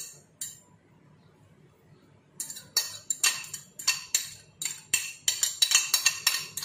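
Metal spoon clinking against glass bowls as chopped vegetables are scraped from one glass bowl into another holding beaten eggs. A clink or two at the start, a quiet stretch of about two seconds, then a quick run of sharp, ringing clinks, about three or four a second.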